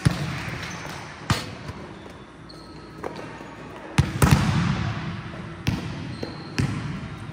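Volleyball being struck and hitting a hard court floor: about seven sharp smacks at irregular intervals, the loudest a quick pair about four seconds in, each ringing briefly in a large hall.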